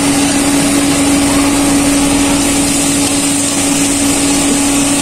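Steady hum of a small electric motor with one constant low tone, running evenly throughout.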